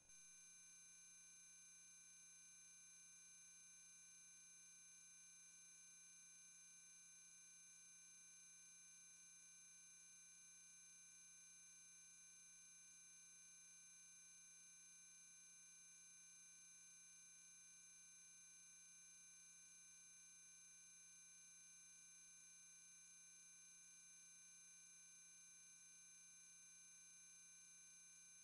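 Near silence with a few faint, steady high-pitched electronic tones: idle line noise from video playback equipment after the recorded programme has ended.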